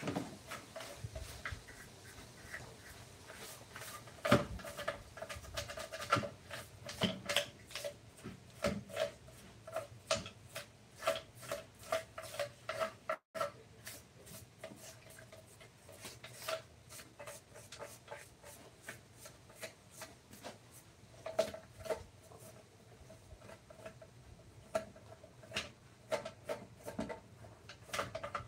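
Hand tool rubbing and scraping on wood in repeated short strokes, with sharp clicks between them.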